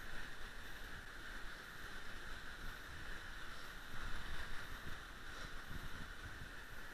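Shallow creek water running over shale, a steady rushing hiss, with an uneven low rumble that swells about four seconds in.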